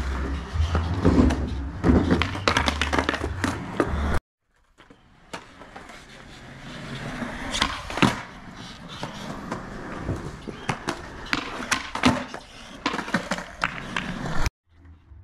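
Skateboard wheels rolling on smooth concrete, with repeated sharp clacks of the tail popping and the board landing during flatground tricks. The sound breaks off briefly about four seconds in.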